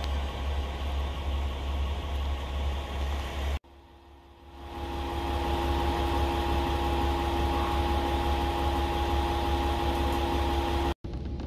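Diesel railcar engine idling while the train stands at a station, a steady low hum. About three and a half seconds in the sound cuts out, fades back up a second later with a steady higher hum over it, then cuts off again near the end.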